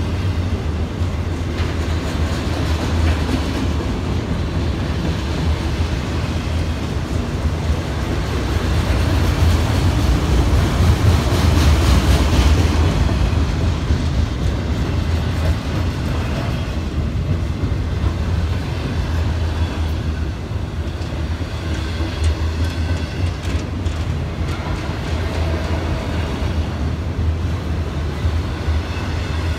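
Freight train of autorack cars rolling past: steady rumble of steel wheels on rail, growing a little louder about ten seconds in and easing again.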